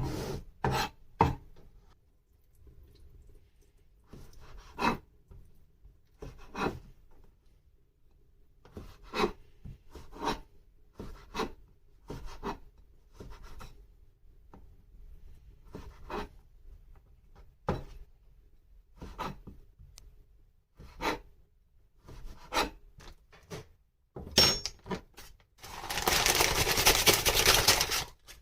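Food being prepared by hand: short scraping strokes every second or two, then a longer, louder rasping stretch near the end.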